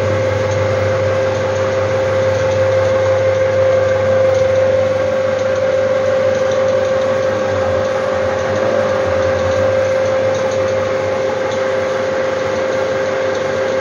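Strong Simplex 35 mm film projector running with its lamphouse: a steady mechanical drone with a constant whine over it.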